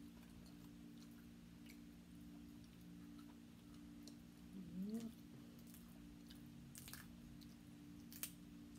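Quiet chewing and hands picking apart cooked crab shell, with faint ticks and two sharp cracks of shell near the end. A short rising sound comes about halfway through.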